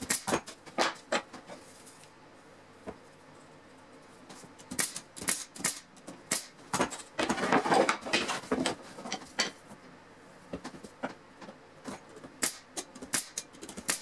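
Brad nailer firing a series of sharp snaps as it drives brads through wood strips into a plywood panel. Around the middle there is a longer stretch of boards being slid and shuffled on the workbench, then the nailer snaps again several times near the end.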